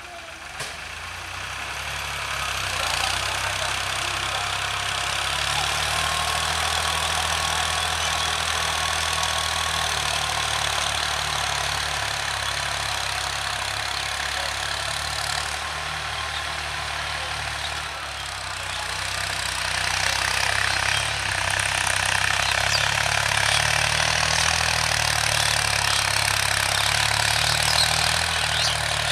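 Mahindra Yuvo 575 DI tractor's four-cylinder diesel engine running steadily under load, driving a rotary tiller through the soil. It gets louder over the first couple of seconds, dips briefly, then is louder again from about twenty seconds in.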